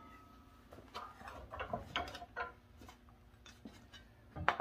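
Scattered light clicks and knocks of metal being handled as the copper sheet and nibbler are turned around and repositioned on a vise, with a sharper knock near the end. The nibbler is not running.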